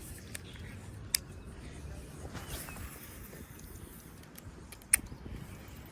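Two sharp clicks about four seconds apart, the second much louder, over a low rumble.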